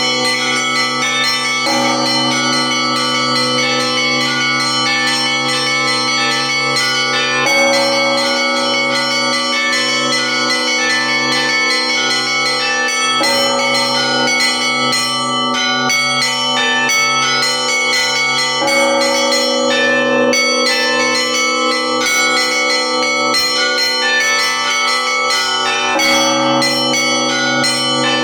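Russian church bells ringing a festive peal (prazdnichny zvon): a fast, dense patter of small bells over rhythmic strokes of middle bells, with the steady hum of a deep bell underneath. The middle-bell pattern changes every five or six seconds as the improvised peal moves on.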